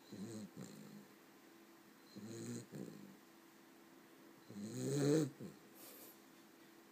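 Cavalier King Charles Spaniel puppy snoring in her sleep: three snoring breaths about two seconds apart, the third the loudest.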